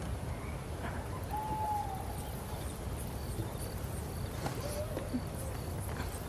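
Night ambience: crickets chirping in short, evenly spaced pulses over a steady low rumble, with a few short whistled calls.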